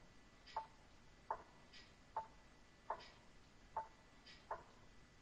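Regular ticking, a little more than one tick a second, each tick with a short ringing tone and fainter higher clicks falling between them.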